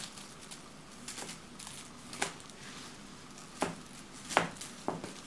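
A cat's paws and claws, with the feather wand toy, tapping and scraping on a wooden floor as the cat swats at the toy: about five sharp taps, the loudest about four and a half seconds in.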